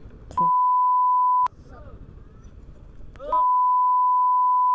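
Censor bleeps: a steady 1 kHz tone that replaces all other sound, once for about a second near the start and again from about three seconds in. Between them there is faint road and street noise.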